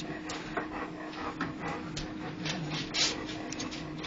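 A dog chewing and gnawing at something on the floor: irregular clicks and crunches, a few a second, the loudest about three seconds in.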